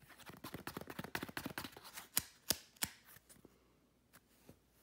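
Faint rapid clicks and ticks from a small paper notepad and a pen being handled, with three sharper clicks a little after two seconds in.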